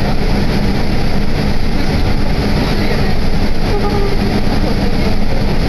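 Guideway bus running along its guideway, heard from inside the cabin: steady engine hum and rumbling running noise.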